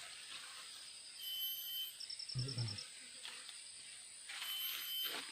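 Birds calling, with a short high whistled note that repeats about every three seconds and a quick rattling trill near the middle, over a steady high insect hum. A brief low murmur comes about two and a half seconds in.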